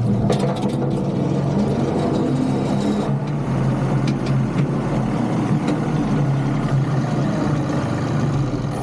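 John Deere 2038R compact tractor's three-cylinder diesel engine running steadily with a low, even drone.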